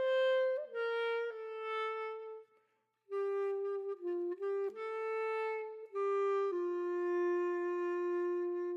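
Background music: a slow solo woodwind melody of long held notes, one note at a time, with a brief pause about two and a half seconds in.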